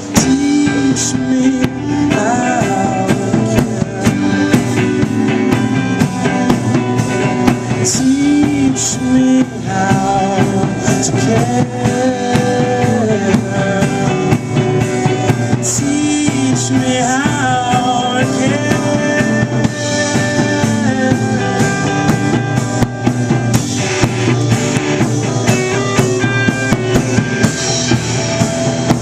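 A live rock band playing an instrumental stretch of a song: a drum kit beating out the rhythm with frequent cymbal and snare hits under guitar and other held, gliding melodic lines.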